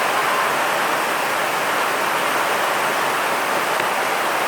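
A steady, even rushing noise that does not change or break.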